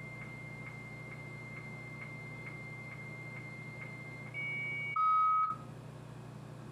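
Dial-up modem handshake heard over the modem's speaker. The answering modem's steady high answer tone clicks softly about twice a second. Just past four seconds in, a slightly higher 300-baud carrier tone takes over, and about a second later a louder, lower calling-modem tone sounds for half a second before the speaker cuts off as the link is made.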